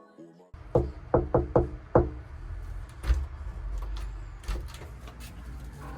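Five quick, sharp knocks over a low steady rumble, followed by a few fainter clicks.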